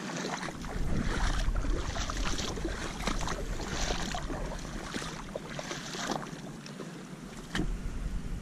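Legs wading through shallow seawater: water sloshing and splashing with each step, roughly once a second.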